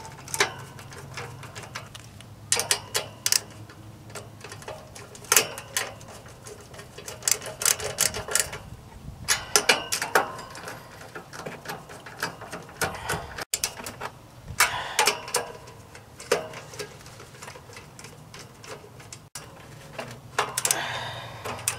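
Nut driver spinning nuts down onto the fan motor's mounting studs, clicking quickly in short bursts several times over, with pauses between nuts.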